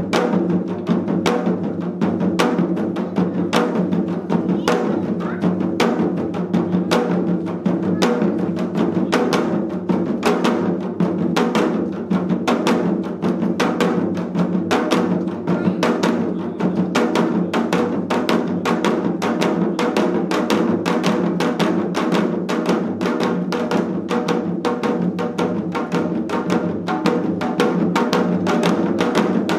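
Four janggu (Korean hourglass drums) played together in a seol-janggu piece: sharp bamboo-stick strokes on the thin head against deeper mallet strokes on the bass head, in a fast, steady, driving rhythm.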